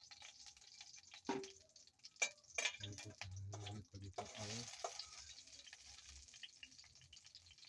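Faint sizzling of cooking oil heating in a pot over a fire, with a few knocks and clinks of the pot or utensils in the first few seconds.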